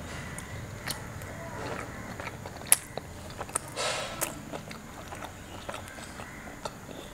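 A person chewing a mouthful of food eaten by hand, with scattered small mouth clicks and smacks. There is a sharp click a little under three seconds in and a short hissing burst around four seconds.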